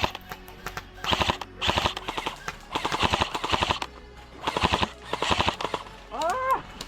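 Airsoft electric rifles firing rapid full-auto bursts, about four short strings of fast, even clicks a second or so apart. A brief rising-and-falling call sounds near the end.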